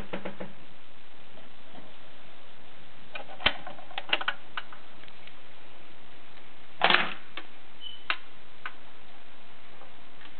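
Garrard record-changer mechanism on a Dansette Conquest clicking and clunking as the pickup arm moves, over a steady hiss. Scattered clicks come in small groups, and the loudest clunk is about seven seconds in.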